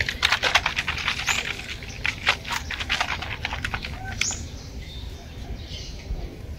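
Rapid scratching strokes of the corroded motorcycle fuse-box pins being scrubbed clean, about eight strokes a second, which ease off about four seconds in.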